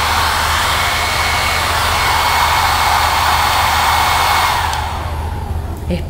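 FEEKAA hair dryer running: a steady rush of air with a thin high motor whine. Near the end it winds down, the whine falling in pitch as the airflow dies away.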